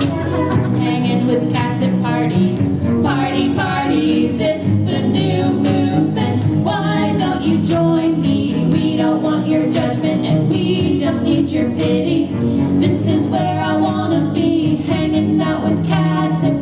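A pop song performed live, with a regular beat, held chords and singing.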